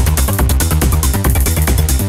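Electronic dance music with a steady, fast beat over heavy bass.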